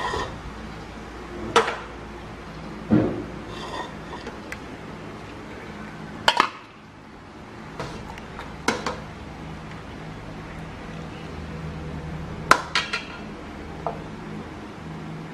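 Metal ladle clinking and knocking against an aluminium stockpot and a ceramic bowl as soup is served: about eight sharp clinks at irregular intervals, some in quick pairs near the end, over a steady low hum.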